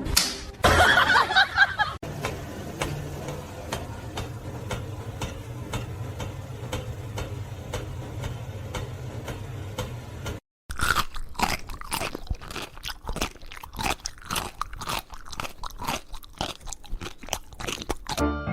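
Close-up crunching and chewing of something crunchy, a rapid run of sharp crisp crunches, broken by a brief cut about ten and a half seconds in.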